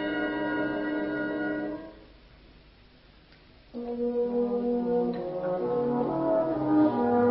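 Brass band holding a full sustained chord that dies away about two seconds in, then a short pause, then the band coming back in with held notes and slowly moving lower parts, growing louder.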